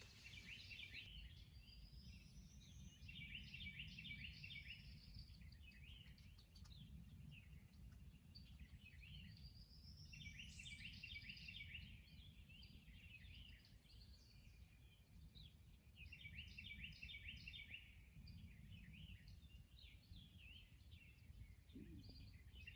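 A faint songbird singing in four phrases, each a rising whistle followed by a quick run of chirps, over a low background rumble.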